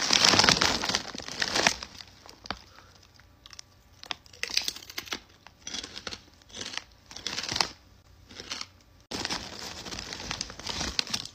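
Plastic chip bag crinkling and rustling as it is handled, in a series of short bursts, with longer, louder stretches at the start and again near the end.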